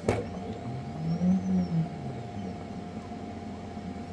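A click, then the resin printer's auto-feed air pump running with a steady hum. About a second in, a low tone swells up and falls back over about a second, the loudest sound here.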